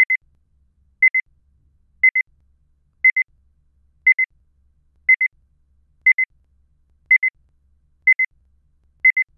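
Electronic timer beeping: a short high double beep repeating about once a second, counting off the time given to answer a question.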